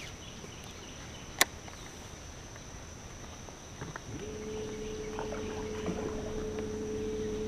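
Electric trolling motor starting up about four seconds in and then humming steadily, under a constant high insect drone from the swamp. A single sharp click comes about a second and a half in.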